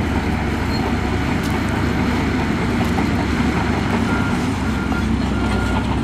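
Diesel engines of heavy earthmoving machinery running steadily, with a faint repeated beep starting about four seconds in.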